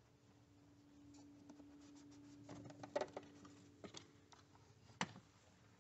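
Faint scraping and rustling of a plastic air box cover and a paper air filter being slid out of the housing, with three light clicks about a second apart.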